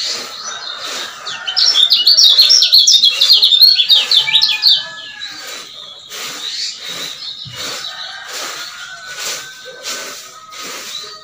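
Male kecial kuning (a white-eye) singing a loud, rapid, twittering burst of high notes from about a second and a half in until nearly five seconds, then giving quieter scattered chirps.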